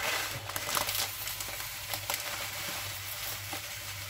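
Plastic packet crinkling as dried vermicelli is shaken out of it into a saucepan of oil, with scattered small ticks of the noodles landing.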